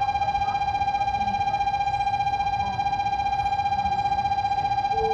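Station platform departure bell ringing continuously: a single high tone that trills rapidly and evenly, the signal that a train is about to leave.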